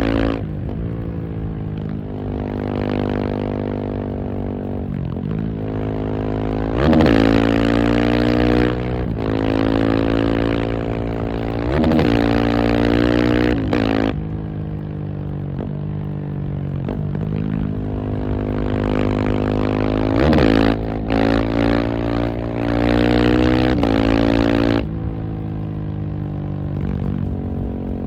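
KTM 690 SMC R's single-cylinder engine being ridden hard, its pitch climbing through the revs again and again and dropping sharply each time the throttle closes or the next gear goes in.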